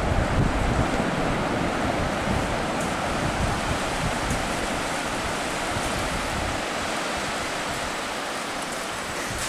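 Surf breaking and washing up a sandy beach, a steady even hiss of waves, with wind buffeting the microphone in the first second.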